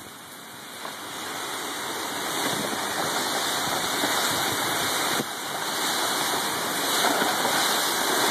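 Storm of wind and heavy rain, with winds of about 50 mph: a steady rushing noise that builds over the first few seconds and dips briefly about five seconds in.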